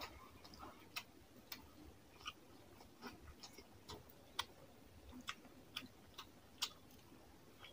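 Close-miked sounds of eating rice and fish curry by hand: short, sharp, wet clicks and smacks at an irregular pace, about two a second.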